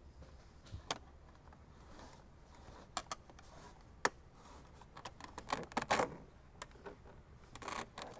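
Faint handling noises from a braided wire harness and a thin mechanic's wire being fed down through plastic A-pillar trim: a few sharp clicks, then a short scuffling rustle about halfway through and again near the end.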